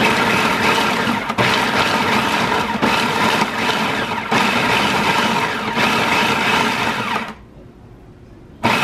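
Food processor pulse-chopping fresh cranberries with jalapeño, cilantro and green onion, running in repeated bursts of about a second and a half each. It stops for just over a second near the end, then starts again.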